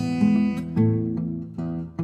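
Fingerstyle blues guitar playing: single picked notes ringing over a plucked bass note, several notes in quick succession.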